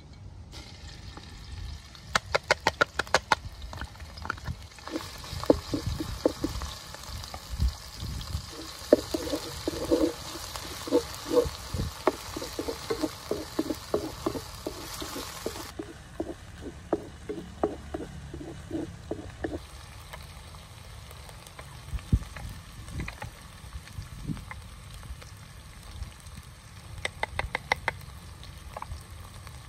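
Cooking sounds: a quick run of clicks, then a steady hiss for about ten seconds that cuts off abruptly. Over the hiss, a utensil taps rhythmically against cookware about two or three times a second, and a few more clicks come near the end.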